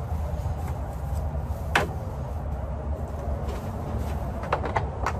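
Low steady rumble with one sharp knock a little under two seconds in and a few light taps near the end, from a plastic concrete mold and a wooden dowel being handled.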